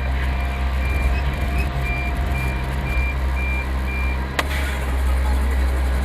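A truck's backup alarm beeps about twice a second over the steady running of its engine while the truck reverses. The beeping stops about four seconds in, followed shortly by a single sharp click.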